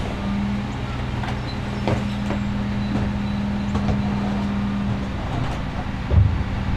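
Garbage truck's engine idling with a steady hum, with scattered clanks and knocks. A heavy thump comes about six seconds in.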